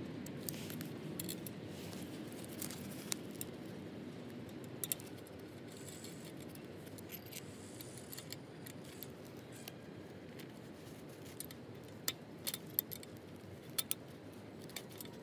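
Scattered light clicks and taps of hard plastic parts being handled as a locking pin is fitted into a swing frame's tube joint, with a few clicks bunched near the end, over a faint steady hum.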